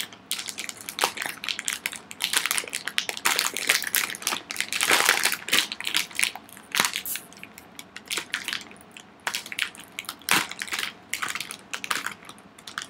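A plastic snack bag crinkling and crackling as hands tug and strain at its top to tear it open, in irregular spells of crackle that come and go.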